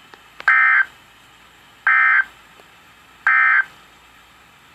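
Three short bursts of warbling digital data tones over NOAA Weather Radio, each about a third of a second long and about a second and a half apart, with faint radio hiss between them. This is the EAS/SAME end-of-message code, sent three times to close the Required Weekly Test.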